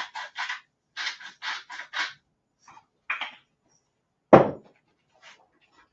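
Salt being dispensed into the pot in a quick run of about ten short strokes over two seconds. Then a single sharp knock about four and a half seconds in, the loudest sound.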